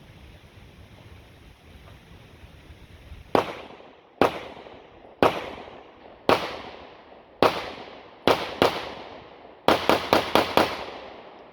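Pistol shots: seven single shots about a second apart, then a quick string of about five or six in a second, each with a short echoing tail.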